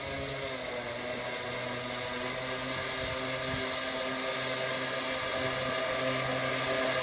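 Electric motors and propellers of a six-engined radio-controlled model Junkers Ju 390 running as it taxis on grass: a steady whirring hum of several tones that shift slightly in pitch, growing slowly louder as the model comes closer.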